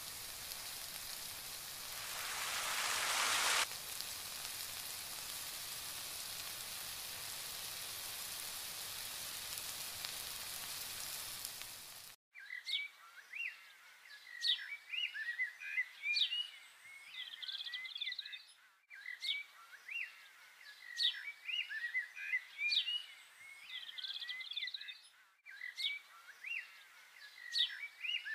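Tomato masala sizzling steadily as it fries in a wok, swelling louder for a moment about two seconds in. After an abrupt cut about twelve seconds in, birds chirp and call in a short recording that repeats about every six and a half seconds.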